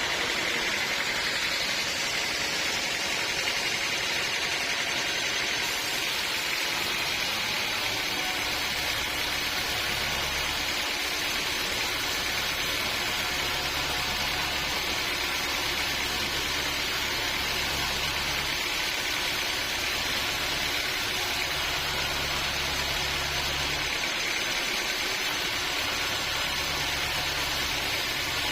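Band sawmill running: a steady, loud hiss, with a low engine hum that comes and goes from about eight seconds in.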